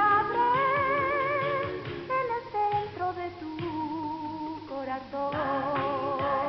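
Theme-song music: a melody held in long notes with a wide vibrato over a plucked-string accompaniment, with a singing voice.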